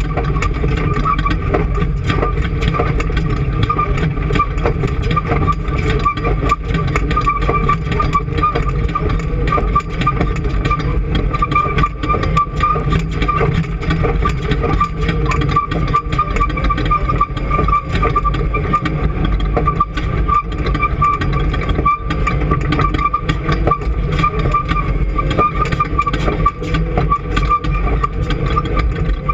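An engine running steadily at a constant speed, with a steady high whine over the low engine noise.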